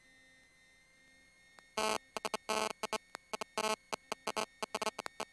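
Aircraft radio between transmissions: silent for the first couple of seconds, then a broken string of short, harsh bursts of buzzy static and clicks, like a carrier being keyed and breaking up.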